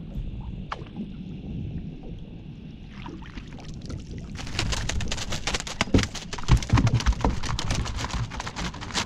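Landing net lifted out of the water with a flathead in it, about four seconds in: a dense patter of water streaming and dripping off the mesh as the fish flaps in the net, with a few heavier knocks as the net swings aboard. Before that only a low rumble of handling and water against the hull.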